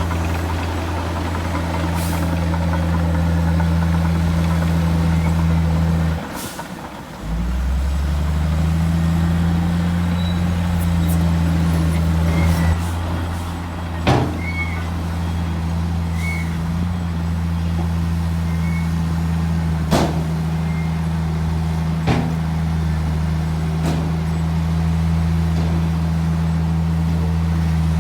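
Heavy diesel earthmoving engine running with a steady low drone, dropping away briefly about six seconds in and then picking back up. A few sharp knocks land in the second half.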